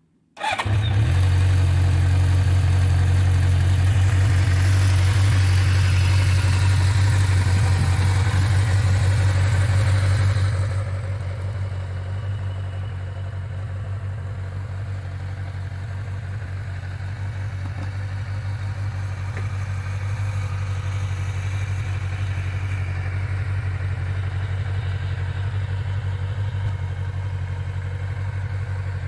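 A 1985 Suzuki GSX550E Katana's air-cooled inline-four engine catches about half a second in and runs with a loud, steady exhaust note. About ten seconds in the sound gets quieter and duller, then settles into a steady idle.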